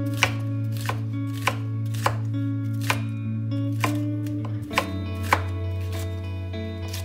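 Chef's knife chopping red sweet peppers on a wooden cutting board: a series of sharp knocks of the blade on the board, roughly one or two a second.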